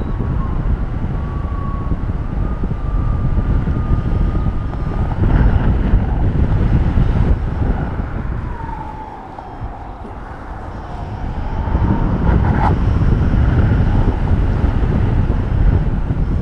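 Wind rushing over the microphone in paraglider flight, easing off briefly in the middle. A thin high tone runs through it, dipping and rising again in pitch mid-way.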